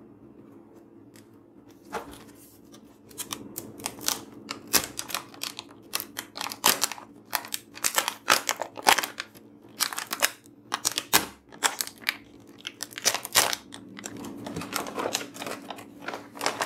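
Clear plastic blister film crinkling and tearing as it is pulled off the cardboard backing of a toy gun set, in irregular crackles that start about two seconds in.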